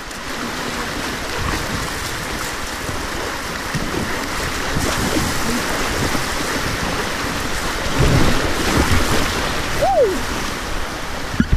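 Whitewater rapids rushing steadily, mixed with wind buffeting on the microphone. A cluster of low knocks comes about eight seconds in, and a short falling tone sounds near the end.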